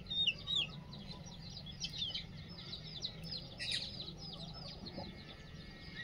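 Young chicks peeping: a run of quick, high, downward-sliding peeps, thickest at the start and thinning out, with a brief rustle a little past the middle.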